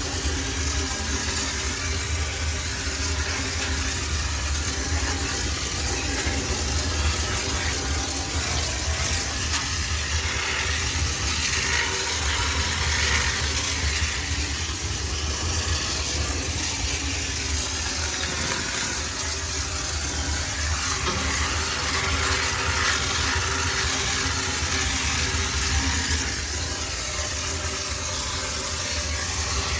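High-pressure steam cleaner running, with a steady low hum and a continuous hiss of steam as it sterilizes a washing machine.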